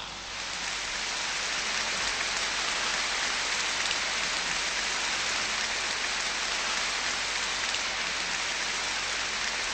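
Live concert audience applauding, a dense even clapping that swells in the first second and then holds steady.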